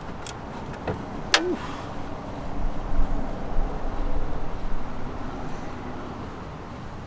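Two sharp clicks of the wrench working the stuck oil drain plug on the oil pan, then a steady low background rumble.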